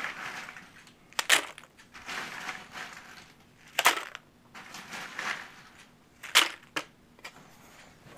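A stainless steel pan of in-shell peanuts and chopped corn and fruit being handled: loose peanut shells shift and crunch against the metal, with four loud sharp knocks, about a second in, near four seconds, and two close together past six seconds.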